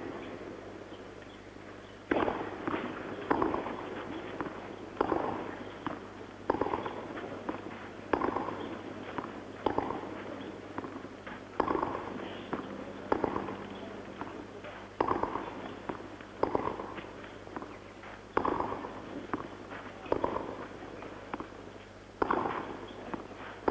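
Tennis rally: a racket striking the ball again and again, alternating between the two players, about one shot every second and a half.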